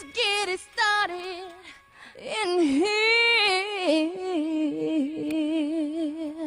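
A high voice singing unaccompanied, with long held notes that slide between pitches and a final held note with vibrato.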